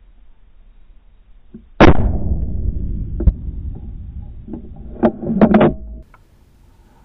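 A single rifle shot from a scoped Howa bolt-action hunting rifle, picked up by a scope-mounted camera: one loud crack about two seconds in with a rumbling tail, followed a few seconds later by several sharp clicks.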